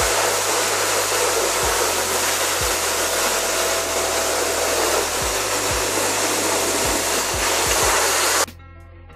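Pressure washer spraying a jet of water into a car's engine bay: a loud, steady hiss of spray over a low steady hum. It cuts off suddenly about eight and a half seconds in.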